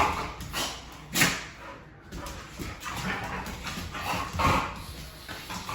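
Dogs barking and whining in short, uneven bursts, three of them louder than the rest.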